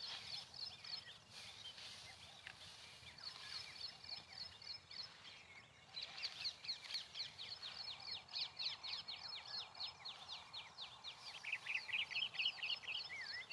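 Birds singing: runs of short, high chirps repeated several times a second, pausing and starting again, with a lower, denser trill near the end.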